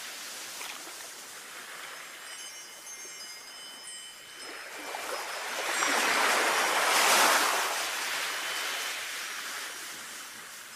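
Sea waves washing on a shore, one wave swelling from about four seconds in and peaking around seven seconds, while a Japanese wind chime (fūrin) rings high, thin notes, most of them between about two and five seconds in.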